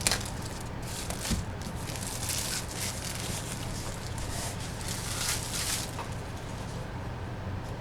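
Boxes and packaging being handled and opened by hand: soft rustling and a couple of sharp clicks, over a steady low electrical hum.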